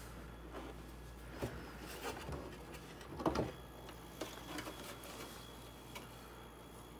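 Scattered plastic knocks, clicks and rustling as a dehumidifier's casing is handled during repair, the loudest cluster about three seconds in, over a faint steady low hum.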